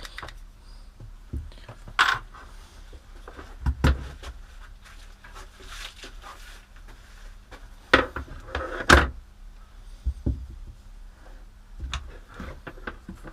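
Irregular clicks, knocks and rustles of plastic tool parts being handled, with a few louder clunks, as an accessory is fitted and locked onto a rotary multi-tool.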